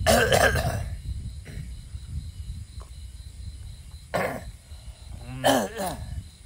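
A person's voice in three short bursts, near the start, a little after four seconds and around five and a half seconds, over a steady low rumble.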